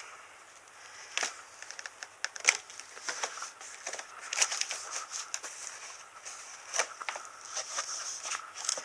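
Packaging being handled during an unboxing: irregular crackling, crinkling and sharp clicks of plastic, foam and cardboard.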